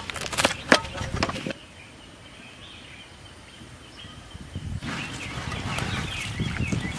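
Wood fire burning between stones: a few sharp snaps and knocks in the first second and a half, then from about five seconds a denser run of small crackles.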